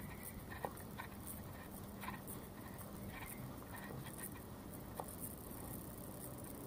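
Faint outdoor ambience: a low steady hum with scattered light clicks and taps.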